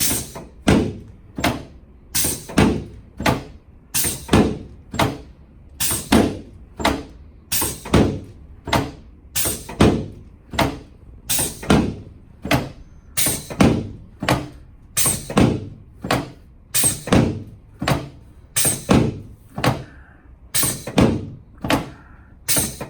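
Rapid, regular thumps, about two to three a second, from a chiropractic adjustment on a patient lying face down on a treatment table.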